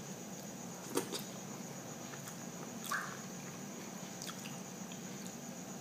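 Someone eating with their fingers, making wet mouth clicks and smacks while chewing. A couple of sharp clicks come about a second in and near three seconds, over a steady background hiss.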